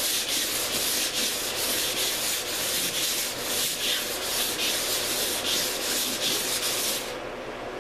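320-grit wet/dry sandpaper on a rubber sanding block rubbed back and forth by hand over the painted canvas hull of a canoe, wet sanding the cured first coat of primer. A steady scratchy rubbing, about three strokes a second, stopping about seven seconds in.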